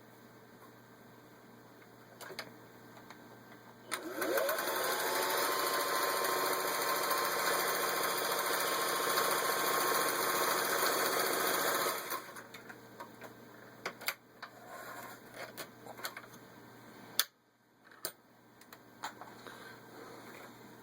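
1961 Singer 503A zigzag sewing machine stitching a crescent fashion-cam pattern. It speeds up about four seconds in, runs steadily for about eight seconds, then stops. Scattered clicks and knocks of the machine being handled follow.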